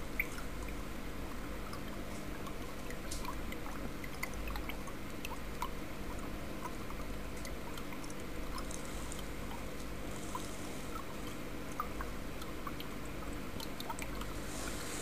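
Water in a turtle tank trickling and dripping, over a steady low hum, with many small scattered ticks.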